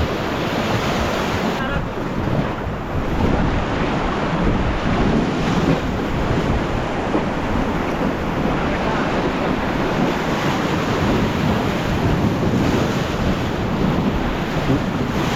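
River water rushing steadily around a raft, with wind buffeting the microphone.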